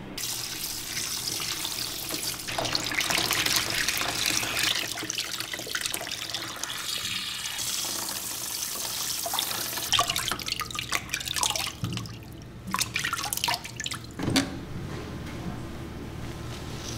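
Water running from a hand-held shower hose and splashing over a wet cat in a grooming tub. After about ten seconds the steady spray breaks up into scattered splashes and drips, with a few knocks.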